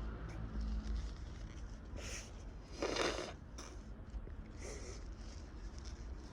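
A person with a runny, congested nose from a head cold sniffing and breathing heavily between sneezes: a few short breathy sniffs, about two, three and five seconds in.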